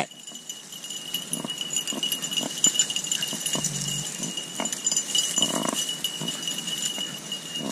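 Hunting beagles barking faintly in short, scattered yelps, roughly one a second.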